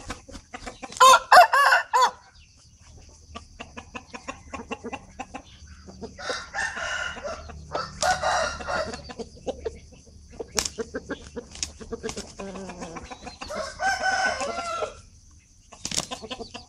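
Chickens clucking and calling, with one loud, wavering call about a second in and further bursts of clucking later, among short tapping clicks.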